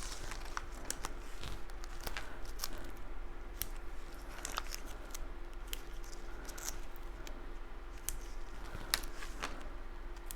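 Cardstock pieces being handled and pressed together: scattered light clicks, taps and short paper rustles over a steady low hum.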